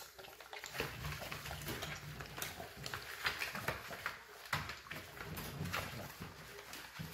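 Nine-week-old American bully puppies moving about in a crate bedded with wood shavings: shavings rustling and paws scrabbling, with small puppy grunts now and then.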